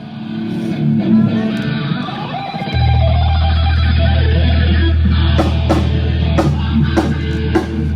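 Band sound check: electric guitar played loud through a stage PA in loose, unstructured phrases. About three seconds in, a deep bass note comes in and is held, and sharp drum hits join near the end.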